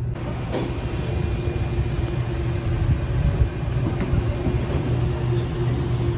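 An engine running steadily, a constant low rumble with a held hum, from the food truck or its generator.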